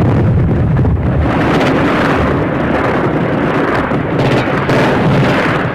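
Iranian red-alert air-raid siren recording played very loud and heavily distorted, heard as a dense, noisy rumble with slow swells rather than a clean tone.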